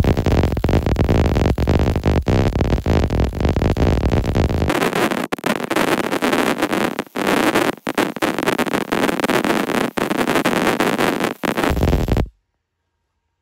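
MIG welding arc in short-circuit transfer, burning Select Arc 70C-6 LS metal-cored wire on thin carbon-steel sheet: a dense, rapid crackle. The low rumble under it drops away about five seconds in, and the sound cuts off abruptly near the end.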